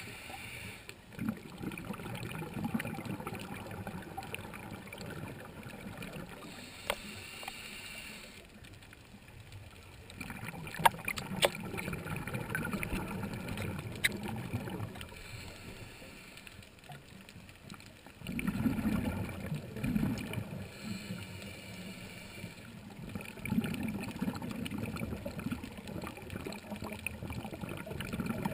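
Scuba diver breathing through a regulator underwater: a hiss on each inhale, then a rumbling gush of exhaled bubbles, repeated over several breaths, with a few sharp clicks.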